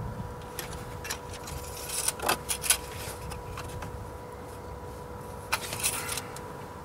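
Engine-oil dipstick being slid down its plastic tube and drawn back out, with scraping, rattling clicks. The clusters come about two seconds in and again near the end.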